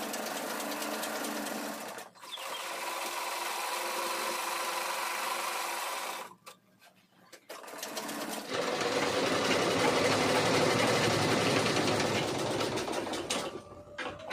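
Black domestic sewing machines stitching cloth in steady runs, with a brief pause about two seconds in and a longer stop around six seconds. When stitching starts again near eight seconds it is louder and fuller, then eases off near the end.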